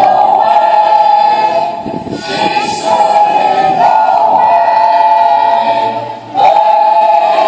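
A choir singing slow, long-held chords, with short breaks between phrases about two seconds in and again about six seconds in.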